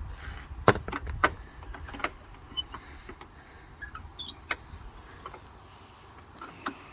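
Metal safety hasp clicking and tapping against the minivan door as it is test-fitted: a few sharp clicks in the first two seconds, then fainter scattered ticks. A steady high hiss and a few short high chirps run underneath.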